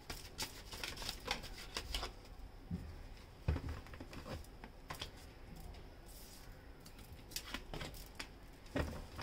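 A deck of tarot cards shuffled by hand: quick dry snaps and flicks of cards against each other. They come thick in the first two seconds, thin out in the middle and bunch up again near the end.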